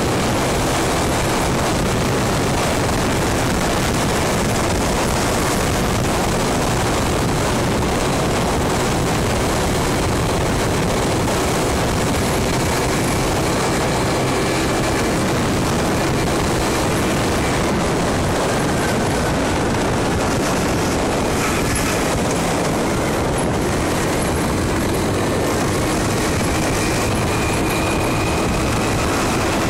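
Loud, steady wind noise on the microphone of a moving scooter, with the scooter's engine running steadily underneath.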